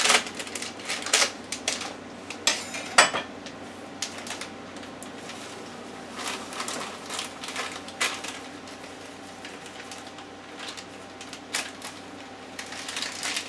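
A plastic bag of cake mix being cut open with a knife and crinkled, then the dry mix emptied into a plastic blender jar. Sharp clicks and knocks come in the first three seconds, then softer scattered rustling.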